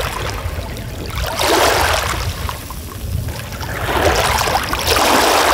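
Water sloshing and splashing in two surges, about a second in and again near the end, over a steady low rumble.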